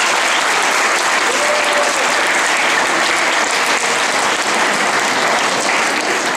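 Crowd of schoolchildren applauding, a dense steady clapping from many hands.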